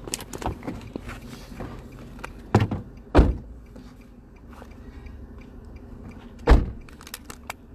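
Three dull thumps, two close together about two and a half and three seconds in and one more about six and a half seconds in, with small knocks and a low steady rumble between them.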